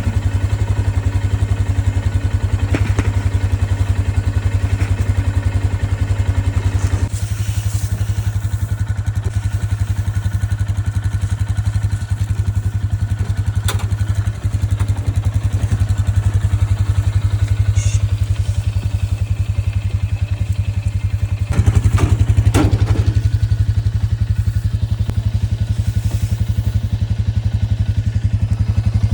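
Small vehicle engine running steadily with an even pulsing note, as on a farm runabout being driven. It eases off about seven seconds in and picks up again past twenty seconds, with a brief clatter.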